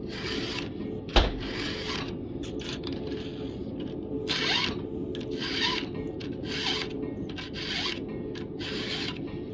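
Flat file rasping across the cutters of a full-chisel chainsaw chain in repeated strokes, about one a second, as the cutters are reshaped to a steeper angle. A single sharp knock comes a little over a second in.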